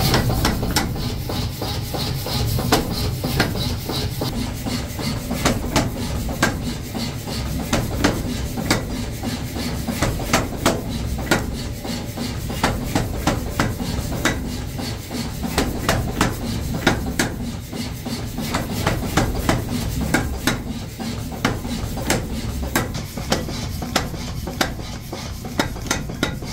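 Power hammer striking hot steel on the anvil during forging: quick runs of sharp metallic blows, with the machine's steady low hum underneath.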